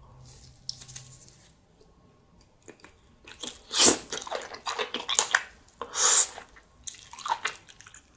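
Wet, close-up biting and chewing of sauce-coated grilled small octopus (nakji horong-i) wrapped in green-onion kimchi. Sparse and faint for the first few seconds, busier from about three seconds in, with two louder wet sounds at about four and six seconds.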